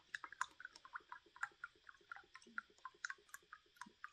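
Boiled linseed oil glugging out of a rectangular metal can into a glass jar: a faint, quick, irregular run of small gurgling pops as air bubbles back into the can through the spout.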